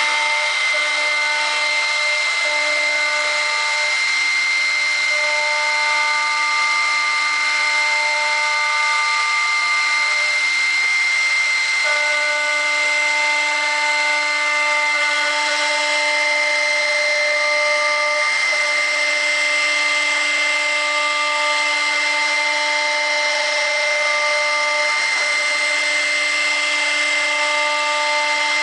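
CNC router's 1.7 kW, 18,000 rpm spindle milling hard PVC with an 8 mm end mill: a steady high-pitched whine over a hiss of cutting. Lower tones switch on and off every few seconds as the machine moves.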